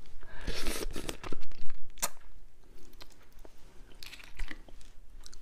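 Close-miked chewing and crunching on pieces of spicy raw marinated crab, in irregular bursts, with one sharp crack about two seconds in.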